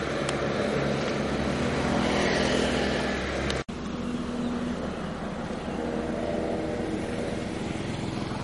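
A motor vehicle engine running steadily, with a brief break about three and a half seconds in.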